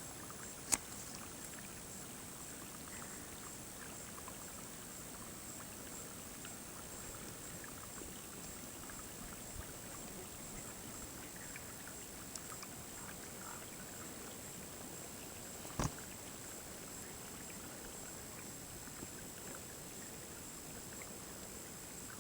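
Faint, steady outdoor ambience with a high hiss, broken by a sharp click under a second in and a short knock about 16 seconds in.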